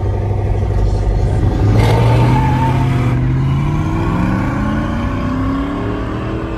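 Pickup truck engine accelerating away. The engine note climbs steadily in pitch for several seconds, with a swell of engine noise as it gets on the throttle about two seconds in.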